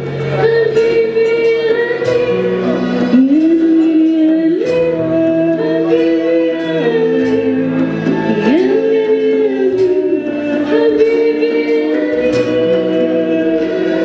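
A woman singing a French song into a microphone, backed by a live band of violin, hand drums (djembes and a frame drum) and keyboard, with a steady drum beat under a sliding, held vocal melody.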